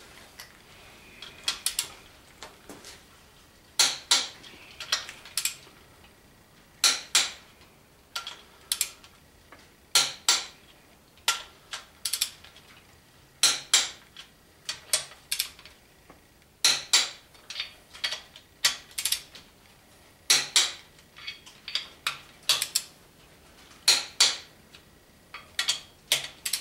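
Click-type torque wrench ratcheting and clicking as it tightens the main bearing cap bolts of a Chevy 350 small-block to 70 ft-lb. Short clusters of sharp metal clicks come about every three seconds, with lighter clicks between them.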